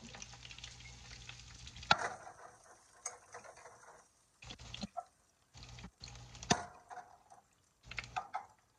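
Cabbage-and-egg Korean pancake sizzling faintly in a flat frying pan, then sharp knocks and clatter as a ceramic plate is pressed over the pan and the pan is flipped. The loudest knocks come about two seconds in and about six and a half seconds in, with a few more near the end.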